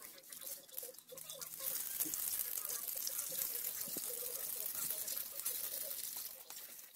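Water from a hose spraying and splattering against a scooter's CVT housing and underside. It starts with scattered drips, becomes a steady hiss about two seconds in, and eases off near the end.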